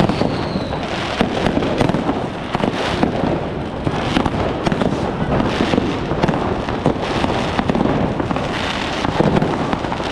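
New Year's Eve fireworks going off all around: a dense, unbroken barrage of overlapping bangs and crackles from many rockets and firecrackers at once. A high whistle dies away within the first second.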